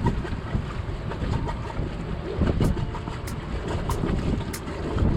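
Strong wind buffeting the microphone, with water and wave noise aboard a sailboat. About halfway through, background music with a steady beat fades in underneath.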